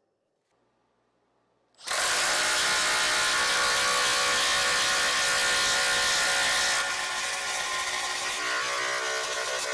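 Makita XDT14 brushless impact driver hammering steadily as it drives a fastener. It starts sharply after about two seconds of near silence and runs a little quieter from about seven seconds in.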